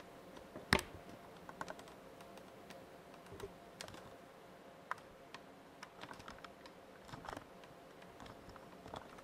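Faint, scattered light clicks and taps of handling, with a sharper click about a second in, over a faint steady hum.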